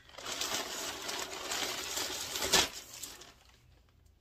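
Plastic shipping bag and packaging rustling and crinkling as clothing is pulled out, with one sharp crackle about two and a half seconds in, then it goes quiet.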